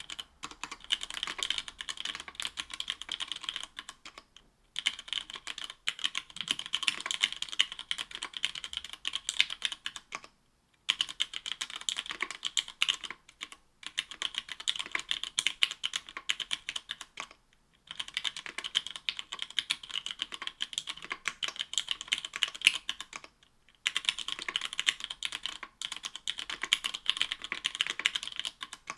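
Fast continuous typing on an Octagon V3 mechanical keyboard with stock Cherry MX Black linear switches (60 g), aluminium plate, GMK keycaps and lubed stabilizers: dense runs of keystrokes broken by brief pauses every few seconds.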